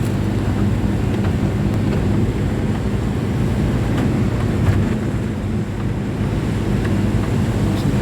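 Steady engine drone and road rumble heard from inside a moving city bus.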